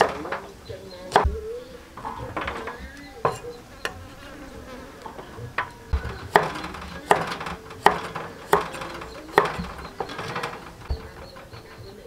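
Cleaver chopping long beans, then carrots, on a thick wooden chopping block: sharp, irregular knocks about one a second, closer together in the second half.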